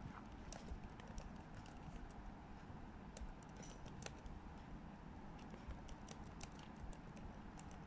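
Computer keyboard being typed on: faint keystroke clicks at an uneven pace.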